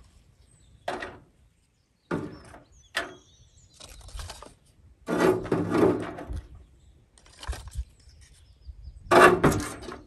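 Dry firewood sticks clattering and knocking together as they are handled and laid by a fire, in a string of separate bursts, the loudest about five seconds in and near the end.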